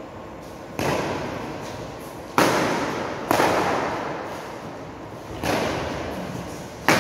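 Badminton rackets striking the shuttlecock in a rally: five sharp hits roughly a second and a half apart, each ringing on in the echo of a large bare hall.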